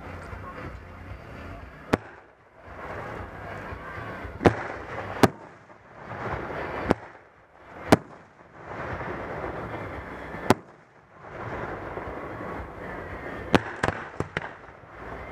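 Aerial fireworks shells bursting with sharp bangs a few seconds apart, then a quick run of several bangs near the end, over steady background noise between the bursts.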